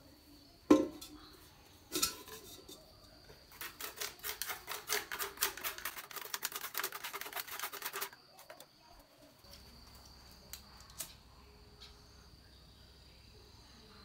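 A sharp metal clank with a short ring as the aluminium sticky-rice steamer pot is set down, then a lighter knock. From about three and a half seconds in, a few seconds of rapid scratching and clicking as a thin stick rakes charcoal ash out of a clay charcoal stove, stopping abruptly.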